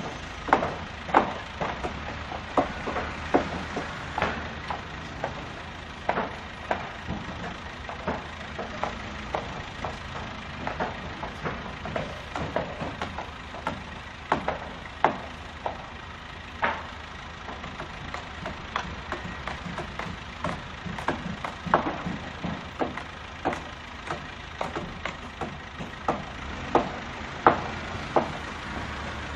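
Busy ambience: irregular sharp knocks and clicks, one to three a second, over a steady low rumble.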